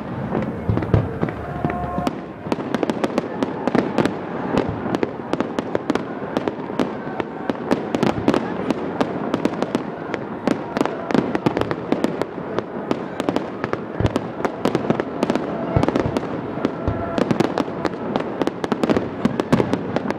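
Fireworks going off: from about two seconds in, a dense, unbroken run of sharp crackling pops, many per second.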